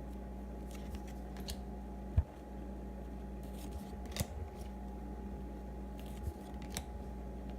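Trading cards being handled and sorted by hand: a scatter of light clicks and flicks of card stock, with one dull thump about two seconds in, over a steady low hum.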